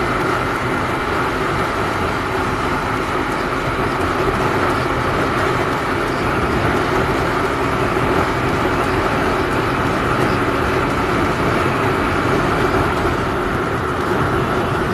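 Hero Glamour motorcycle's 125 cc single-cylinder engine running at a steady cruising speed, mixed with steady wind and road noise from riding at speed.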